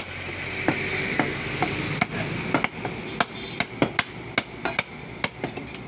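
Cleaver blows on a wooden log chopping block as beef is cut, sharp knocks about twice a second over a steady background of market noise.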